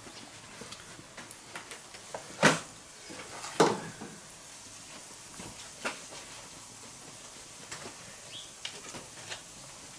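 Chopped onions in hot clarified butter in a cast-iron pan over charcoal starting to fry, with faint crackling and small irregular pops. Two louder short sharp sounds come about two and a half and three and a half seconds in.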